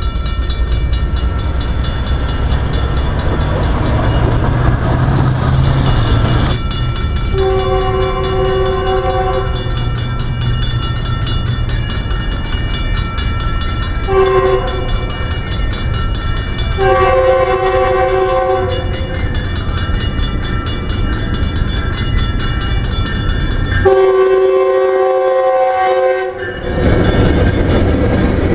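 Grade-crossing warning bell ringing steadily as a Metrolink commuter train approaches. The train sounds four horn blasts (long, short, long, long), each a chord of several notes, as the crossing warning. The last blast is the loudest, and the train rumbles and clatters into the crossing near the end.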